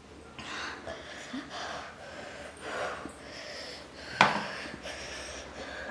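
A woman breathing hard in noisy, audible breaths through the mouth against the burn of an extremely hot chili chip. A single sharp knock about four seconds in is the loudest sound.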